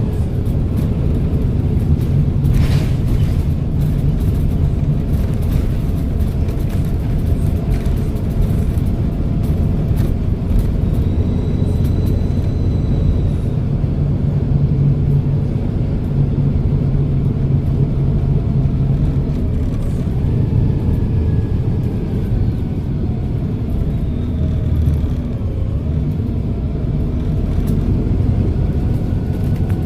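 Volvo B7RLE bus's diesel engine running steadily under way as a low drone whose pitch shifts with speed. Faint high whistles rise and fall over it, the bus's turbo whistle.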